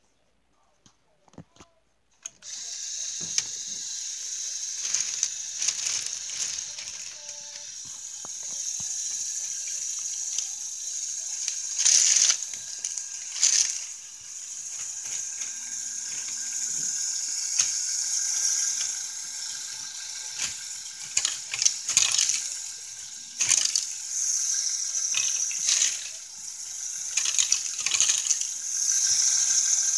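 Lego Technic bucket wheel excavator's electric motors switched on about two seconds in, then running steadily with a high whir while its plastic gears click and rattle.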